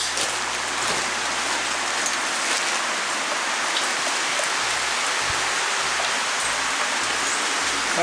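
Steady rain falling, an even hiss that keeps on without a break.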